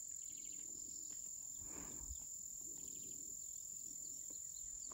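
Insects trilling in one steady, unbroken high-pitched tone, faint in the background.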